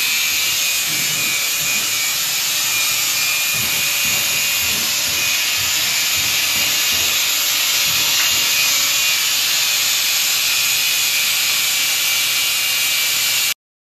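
Angle grinder with a cut-off disc cutting through excess steel rebar, a steady high-pitched grinding whine that cuts off abruptly near the end.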